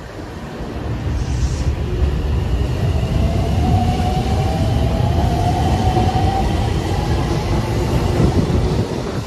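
Aonami Line 1000-series electric train pulling away from the platform, with a heavy rumble of the cars rolling past. Its traction motors whine, rising slowly in pitch as it accelerates.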